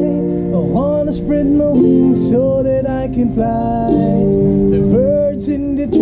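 A band playing a reggae song: strummed acoustic guitar, electric guitars and bass guitar, with sustained notes that bend in pitch.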